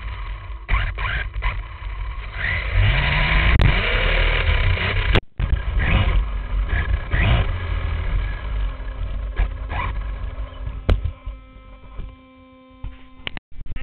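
HPI Bullet ST Flux brushless electric RC stadium truck heard from its own onboard camera: a heavy rattling rumble over rough ground with the motor whine rising and falling in pitch, and a few sharp knocks as the truck hits the ground. Near the end it settles to a quieter steady hum.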